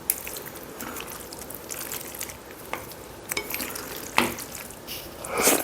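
Food being stirred and mixed in a bowl, wet and sticky, with many small clicks of utensils against the dish and a sharper clack about four seconds in.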